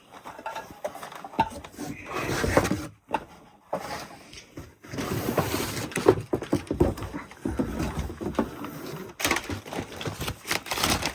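Cardboard box and plastic packaging being handled, rustling with scattered knocks and clicks as a vacuum cleaner is unpacked.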